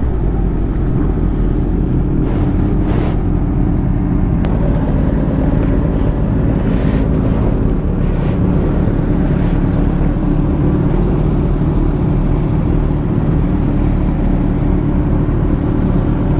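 Motorcycle engine idling and running at low speed close to the microphone, a steady low rumble with no change in pitch.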